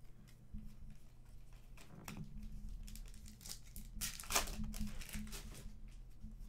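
Foil wrapper of a Panini Contenders basketball card pack crinkling and being torn open by hand, loudest about four seconds in.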